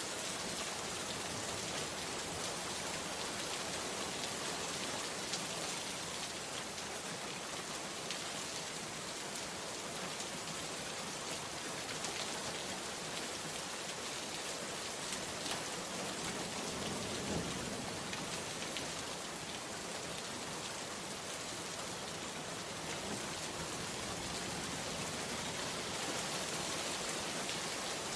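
Steady rain falling on a surface, with sharp ticks of single drops scattered through it.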